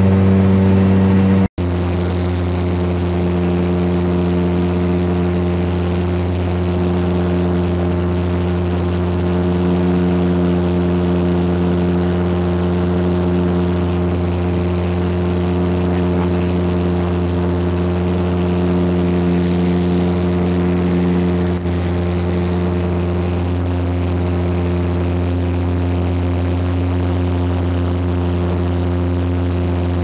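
Cabin noise of a de Havilland Canada DHC-6 Twin Otter in flight: the steady drone of its two PT6A turboprop engines and propellers, a low hum with several steady tones above it. The sound drops out for an instant about a second and a half in.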